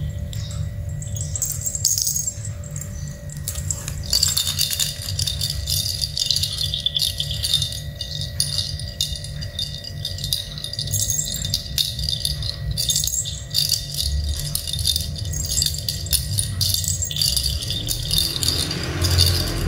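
Cat toys on a string rattling and jingling in quick, irregular clicks as a kitten bats and tugs at them.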